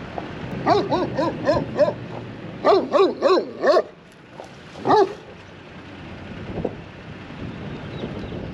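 Sheepdog barking in quick bursts: about five barks, a short pause, four more, then a single bark a second later.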